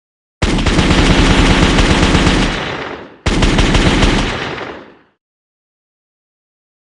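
Machine-gun fire sound effect in two rapid bursts: the first lasts about two and a half seconds, then a second begins straight after and lasts about two seconds. Each burst tails off.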